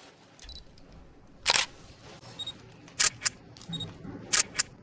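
Camera shutter clicks as photos are taken, about five sharp clicks, some in quick pairs, with fainter clicks between them.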